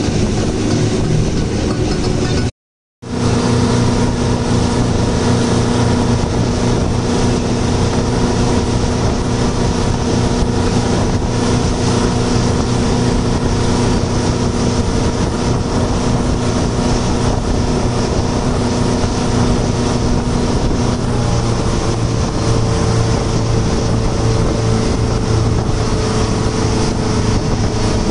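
Speedboat engine running steadily at cruising speed, with the rush of water and wind over it. The sound drops out for about half a second a few seconds in, then carries on unchanged.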